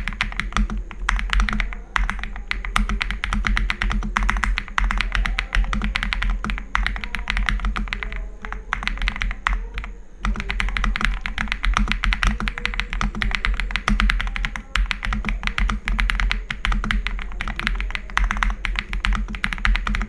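Fast typing on an Attack Shark X85 mechanical keyboard: a dense run of keystroke clacks, with short pauses about eight and ten seconds in, over background music with a steady bass.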